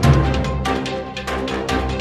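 Theme music with a deep sustained bass and chords under quick, repeated percussive hits.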